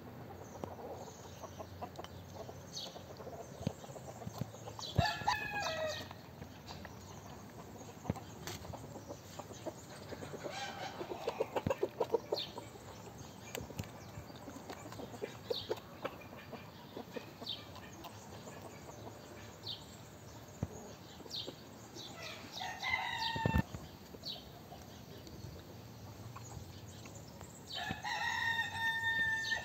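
Rooster crowing three times, the last call the longest, with hens clucking in between.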